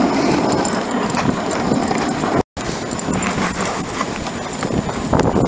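Dog sled moving over snow behind a team of sled dogs: a steady, choppy crunching and pattering of runners and paws on snow. It cuts out briefly about two and a half seconds in.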